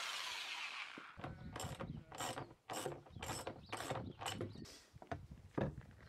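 Electric drill spinning down after drilling through perspex, followed by a run of about ten quick mechanical ratcheting clicks, roughly three a second, and a couple of knocks near the end.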